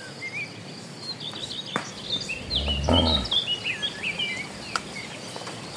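Small birds chirping and twittering in quick, repeated high phrases over a rural outdoor background, with one short low call about halfway through.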